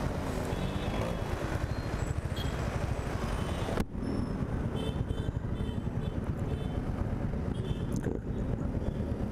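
Road traffic at a standstill: a motorcycle and the surrounding vehicles idling close by as a dense, steady low rumble, with a momentary break in the sound about four seconds in.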